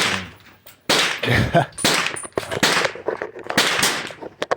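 Several rifle shots on an outdoor range, about one a second, each with a sharp crack and a short echo.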